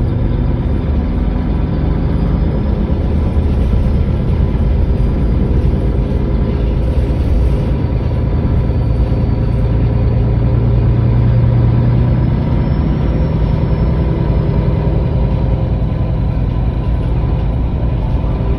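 MAN Lion's City GL articulated bus's straight-six diesel engine running steadily, heard from inside the bus as a low hum that grows a little stronger around the middle.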